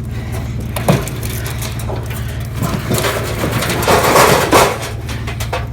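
A discarded scrap item being shoved into a pickup truck's bed: a sharp knock about a second in, then a longer scraping, crunching clatter in the second half, over the steady low hum of the idling truck engine.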